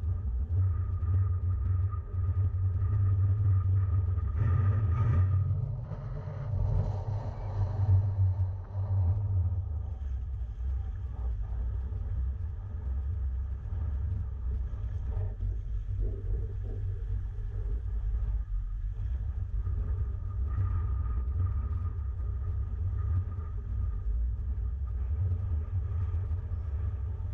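Wind buffeting an action camera's microphone: a steady, gusting low rumble.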